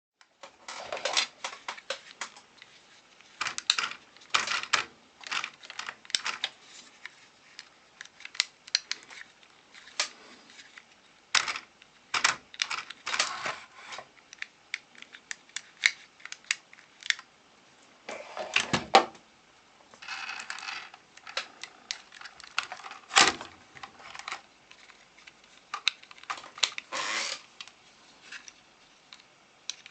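Irregular clicks, taps and rattles of small hard parts being handled, as when working on a radio-controlled toy car, with a brief steadier rasping noise about twenty seconds in.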